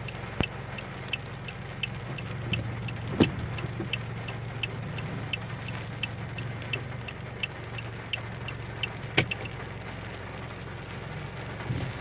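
A car's indicator relay ticking evenly, about one and a half ticks a second, over the steady hiss of rain on the car. A few louder sharp knocks stand out, the loudest about three seconds and nine seconds in.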